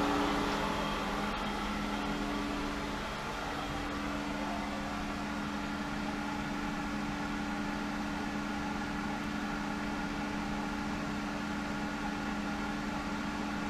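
Hayward Super Pump VS (SP2603VSP) variable-speed pool pump running at 2500 RPM: a steady motor hum with two held tones.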